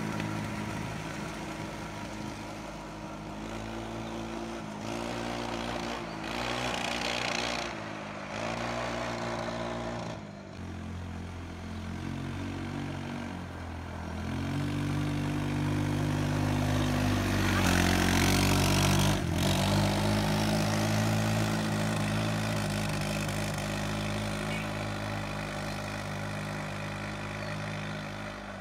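Off-road go-kart's small engine running as the kart drives along the street, its pitch rising and falling with the throttle several times. It grows loudest as the kart passes close by about two-thirds of the way through, then fades as it drives off.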